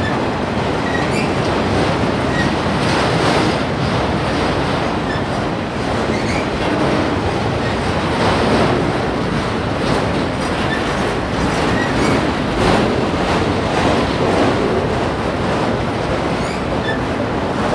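Freight train of enclosed autorack cars rolling past close by: a steady rumble and clatter of steel wheels on rail, swelling and easing slightly as cars go by, with brief faint high squeaks of wheel on rail now and then.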